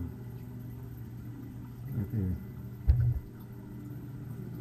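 Steady low hum of indoor room ambience, with faint, indistinct voices about two seconds in and a single short thump just before three seconds.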